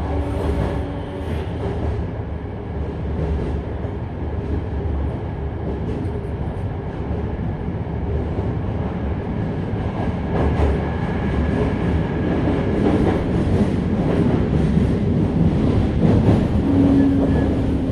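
Toei 5300 series electric train running, heard from inside the car: steady wheel and running noise that builds slowly, with a few knocks from the track and a steady motor tone coming in near the end.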